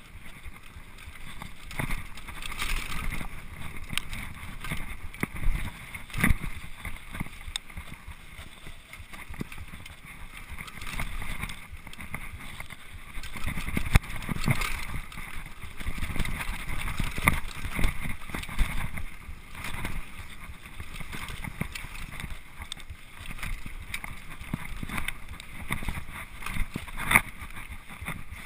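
Mountain bike descending a rough dirt trail, heard through a GoPro's housing: a steady rush of wind and tyre noise broken by frequent irregular knocks and rattles as the bike hits bumps.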